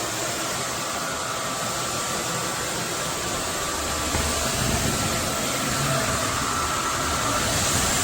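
Roborock F25 GT cordless wet-dry vacuum mop running steadily: a constant motor whine over rushing air noise, with a low rumble growing from about halfway in.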